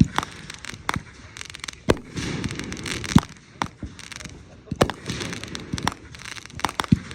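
Consumer fireworks going off: an irregular run of sharp bangs and cracks, with the loudest reports about three and five seconds in.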